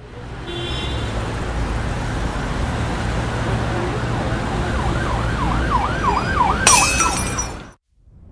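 Synthesized intro sound effects: a steady noisy drone with a low hum, joined about five seconds in by a fast siren-like warble of about four swoops a second. A sharp glitchy hit comes near seven seconds, the sound cuts off abruptly, and a rising whoosh starts near the end.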